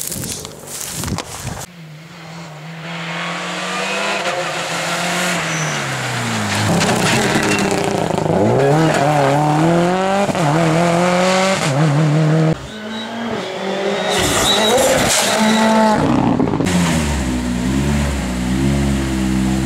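Subaru Impreza rally car's turbocharged flat-four engine driving hard past on a test stage, its revs climbing and dropping again and again through gear changes. Near the end a rally car engine idles steadily.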